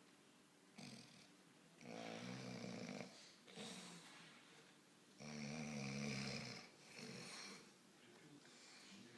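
A sleeping man snoring: two long, buzzing snores about three seconds apart, with fainter breaths between them.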